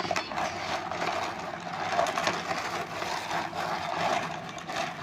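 Small stones being stirred and rubbed together, a dense, continuous clatter of many tiny clicks.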